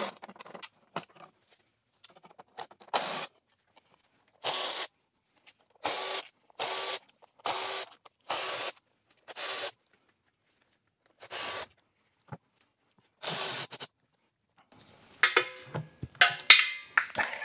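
Cordless electric ratchet spinning out the bolts of a ZF 6HP26 transmission oil pan, in about nine short runs of half a second or so each. Near the end come a flurry of metal clinks and rattles as the pan is handled.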